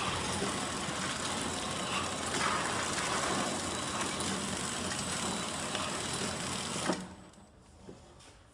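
Horizontal flow wrap packaging machine running with a steady mechanical noise, then stopping abruptly with a short knock about seven seconds in.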